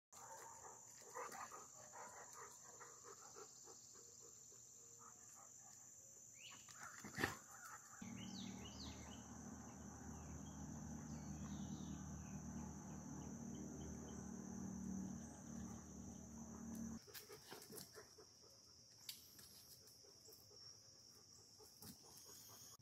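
Faint steady high-pitched drone of an outdoor insect chorus, with a low hum in the middle stretch and a single sharp knock about seven seconds in.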